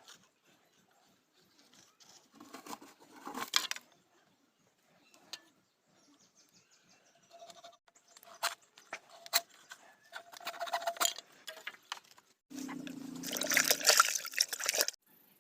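Bamboo being worked with hand tools: bursts of scraping and rasping with a few sharp clicks, the longest and loudest burst near the end.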